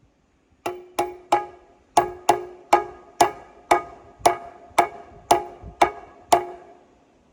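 Thirteen ringing metal-on-metal hammer blows, about two a second, driving a bearing race into the Gleaner R72 final drive housing to seat it.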